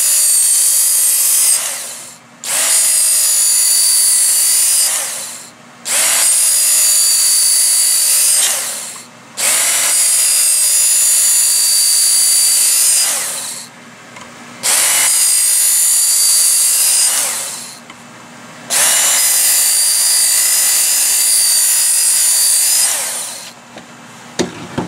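Work Sharp Knife and Tool Sharpener's motor-driven belt grinding an axe edge on its coarse green abrasive belt, run in about six passes of roughly three seconds each. Each pass starts sharply with a high whine and winds down in the short pause before the next.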